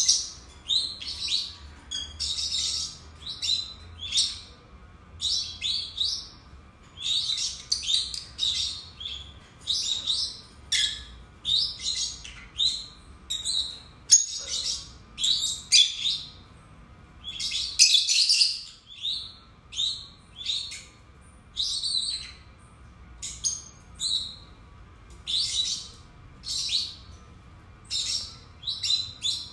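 Two peach-faced lovebirds chirping and calling: short, shrill, high-pitched chirps repeated about two a second without a break.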